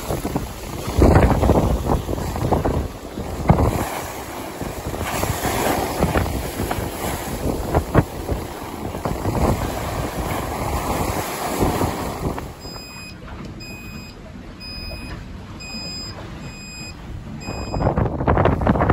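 Wind gusting over the microphone with sea noise on a sailboat. About two-thirds of the way through, an onboard electronic alarm beeps about seven times at an even pace of roughly one and a half beeps a second, a high pure beep, then the wind picks up again near the end.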